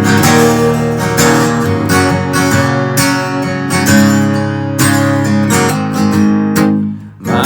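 Country song intro: strummed acoustic guitar chords with a steady rhythm, pausing briefly near the end.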